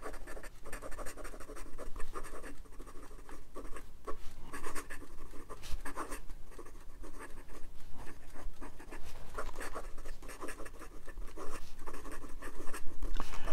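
Fine steel nib of a MaJohn P136 fountain pen scratching across notebook paper in quick writing strokes: a light, irregular rasp, a short burst with each stroke and brief gaps between words.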